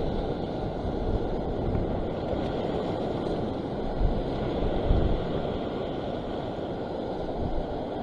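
Wind blowing on the microphone over the steady wash of sea waves, with a couple of stronger low gusts about four and five seconds in.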